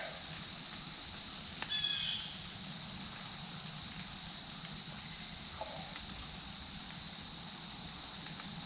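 Steady woodland background hiss, with one short bird call about two seconds in.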